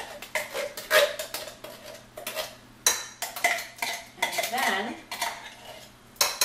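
Metal spoon scraping and clinking repeatedly inside an open tin can, emptying pumpkin puree into a mixing bowl, in many quick irregular strokes.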